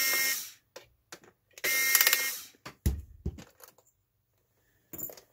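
Electric screwdriver motor whirring in two short bursts about two seconds apart while backing out a screw, followed by a knock and a few faint handling clicks.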